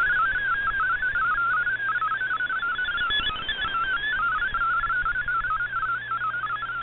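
Shortwave MFSK32 digital text signal received on an AM receiver: a fast, warbling stream of single tones hopping up and down in pitch over steady band hiss. The signal is data being decoded into text, and its loudness dips slightly as it fades.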